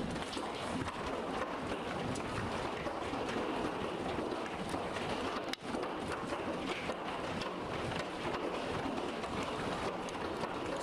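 Hailstorm: a dense, steady clatter of hailstones and rain striking hard surfaces, mixed with wind, broken by a brief drop about halfway through.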